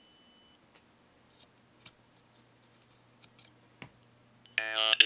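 A quiet pause with a low steady hum and a few faint clicks; about four and a half seconds in, a Parallax Propeller microcontroller's real-time text-to-speech voice starts a new phrase through a small speaker. The voice is buzzy and robotic, its code still rough enough that the words come out unclear.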